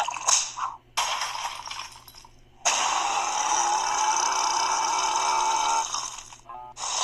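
Burping: a short burp in the first second, then one long, drawn-out burp lasting about three seconds.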